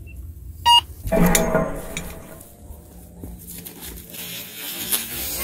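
Metal detector giving one short beep over a buried target a little under a second in, followed by a longer burst of rustling, scraping noise and then a faint hiss.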